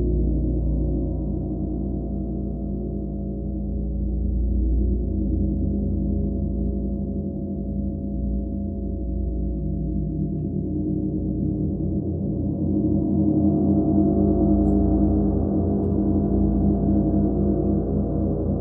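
A gong played continuously, its low tones overlapping in a sustained shimmering wash with no separate strikes standing out. The wash swells louder and a little brighter about two-thirds of the way in.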